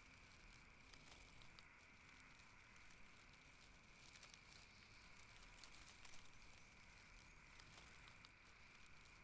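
Near silence: a faint steady high hiss with a few scattered faint ticks.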